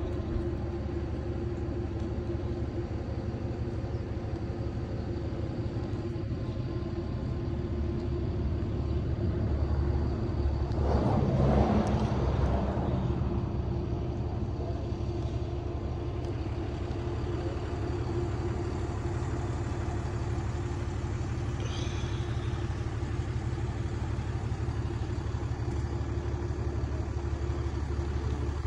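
A steady low hum, with a vehicle passing about eleven seconds in, rising and fading over a couple of seconds.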